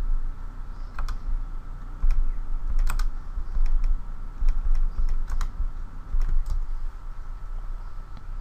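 Computer keyboard keystrokes and mouse clicks, irregular and scattered, over a steady low electrical hum.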